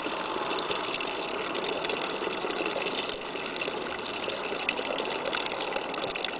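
A thin stream of water draining through a hole in the bottom of a plastic basin and splashing steadily into a plastic bucket below.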